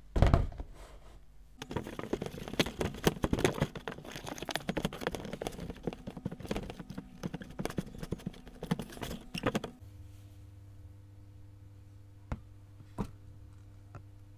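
Slime being worked, a dense run of wet, sticky clicks and crackles that goes on for about eight seconds and then stops, leaving a faint steady hum with two single clicks near the end. A sharp knock comes right at the start.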